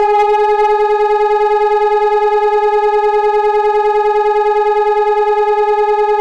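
Electronic siren, which the uploader takes for a Hörmann ECN 600, sounding the German fire alarm signal. Its wind-up levels off at the start and it then holds one loud, steady tone at full pitch.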